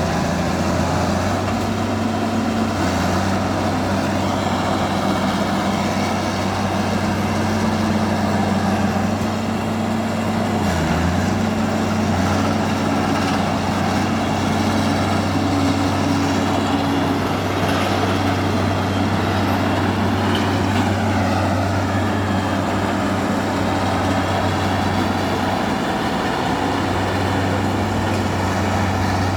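Bulldozer's diesel engine running steadily while skidding logs, with clanking machine noise over it; the engine note dips briefly about eleven seconds in.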